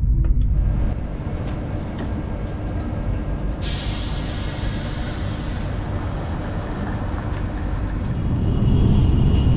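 Train running with a steady low rumble, and a sharp hiss lasting about two seconds that starts about four seconds in.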